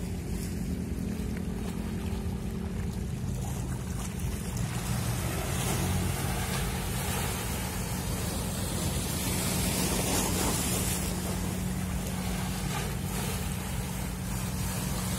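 Steady low hum of a boat's engine heard from on board, with wind and water rushing over it that grows louder about five seconds in.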